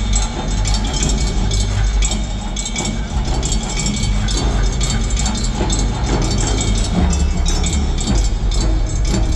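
Live concert percussion from the drums segment: quick, even drum and percussion hits over a deep, steady low rumble, heard from the audience in a large arena.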